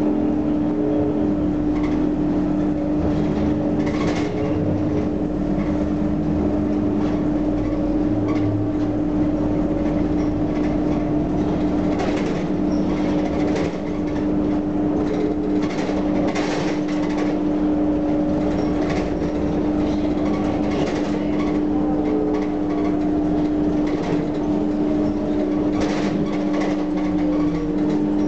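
Interior of a Heuliez GX 327 city bus under way, heard from the rear seats near its Iveco Cursor 8 diesel engine and ZF Ecomat automatic gearbox. There is a steady drone with an engine note that rises and falls, and short rattles from the body and fittings.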